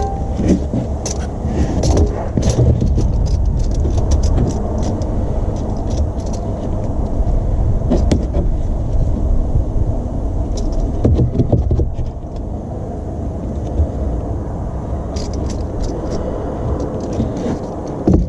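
Steady low rumbling noise with scattered metal clicks and clinks as a three-jaw claw oil filter wrench on a ratchet extension is worked on the oil filter to break it loose.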